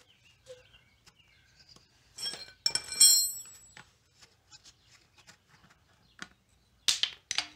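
A flat screwdriver prying at the plastic belt-inspection plug in a scooter's transmission cover: light clicks and scrapes, a sharp ringing metallic clink about three seconds in, and loud scuffing near the end as the plug is worked loose.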